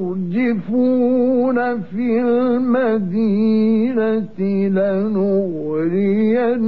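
A man's voice reciting the Quran in a slow melodic chant, each syllable drawn out into long held notes with wavering, ornamented pitch, broken by a few short pauses for breath.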